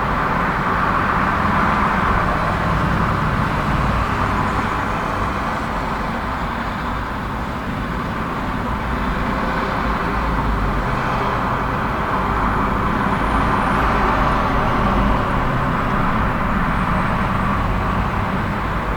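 Steady road traffic on a busy street: a continuous wash of tyre and engine noise from passing cars, easing slightly partway through and swelling again.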